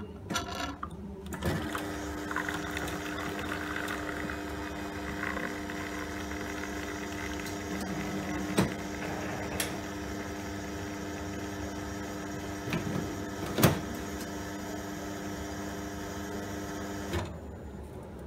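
Automatic bean-to-cup coffee machine running steadily as it dispenses coffee from twin spouts into a mug. It starts about a second and a half in, has a few sharp clicks along the way, and cuts off near the end as the brew finishes.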